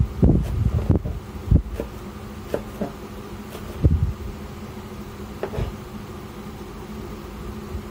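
Kitchen knife chopping spring onion stalks on a plastic cutting board: a quick run of dull chops in the first second and a half, then scattered single cuts.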